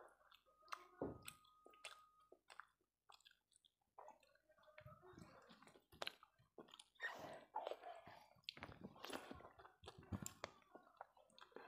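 Faint, close-up eating sounds: chewing of a mouthful of rice and fish curry, with small wet mouth clicks, and soft squishing as fingers mix rice on the plate.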